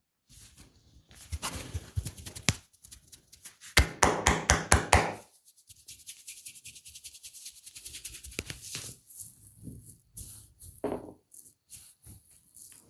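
Hands massaging skin: rubbing strokes and sharp taps, with a quick run of taps about six a second a little after the start.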